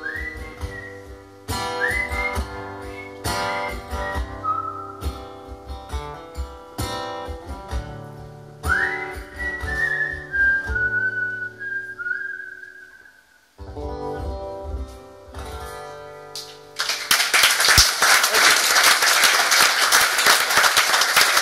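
Acoustic guitar strummed under a whistled melody, each whistled note scooping up into pitch. The playing stops about 13 seconds in, a few soft closing notes ring, and from about 17 seconds the audience applauds, louder than the music was.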